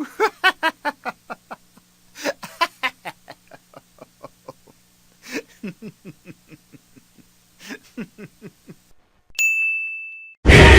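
Meme sound-effect clips played in a row. First a person laughs in quick repeated bursts of short "ha" pulses, four bursts a couple of seconds apart. A single bright ding rings out about nine seconds in and fades. Near the end, loud music with air horns cuts in.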